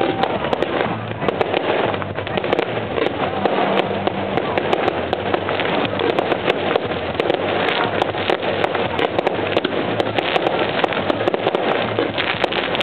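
Fireworks going off in a dense, continuous barrage of sharp crackling and popping.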